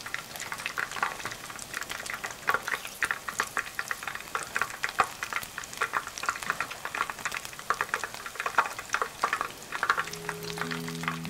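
Batter-coated silverside fish deep-frying in plenty of oil on their first fry at medium heat: a dense, irregular crackle and sizzle full of sharp pops. Background music comes in near the end.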